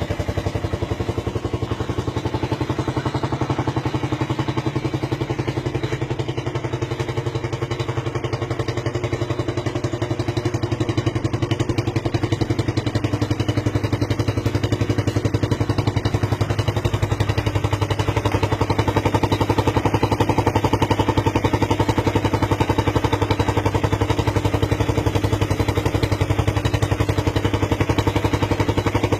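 Suzuki Raider 150 motorcycle's single-cylinder engine running steadily at a fast idle, with a rapid, clattering machine-gun-like pulsing from the exhaust.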